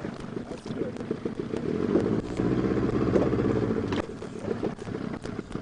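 Boat engine running with a rapid low rumble, rising in loudness about two seconds in and easing off again about four seconds in, as the boat is manoeuvred to follow a hooked fish.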